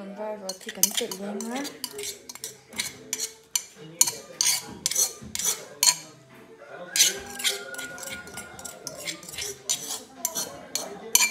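Metal spoon clinking and scraping against an aluminium cup in many quick, irregular strikes as it knocks the cup's contents out. One strike about two-thirds of the way through leaves a short ringing tone.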